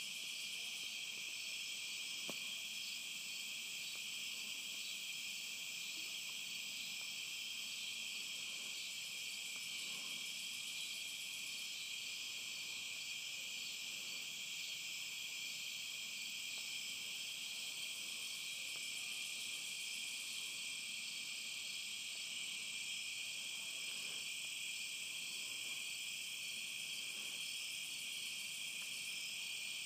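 Steady insect chorus, a continuous high-pitched trilling that never lets up.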